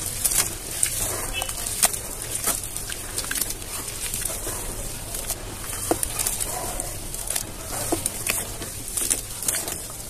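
Hands squeezing and kneading wet cement slurry in a plastic bucket: irregular wet squelches, drips and small splashes.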